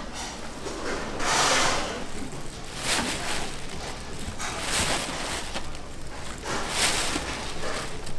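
Plastic bag rustling as handfuls of sliced green onions are pulled out and dropped into earthenware bowls, a noisy rustle every two seconds or so.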